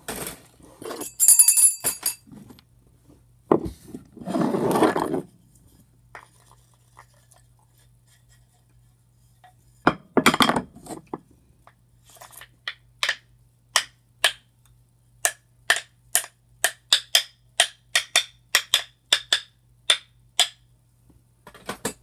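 A wooden stick striking something hard in a quick run of sharp taps, about two or three a second, after a few louder clattering knocks in the first half.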